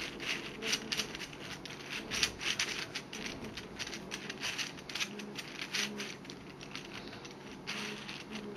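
ABS plastic pieces of a 3D-printed twisty puzzle clicking and rattling as its faces are turned by hand: an irregular run of light clacks. The pieces are loose, with a lot of play between them.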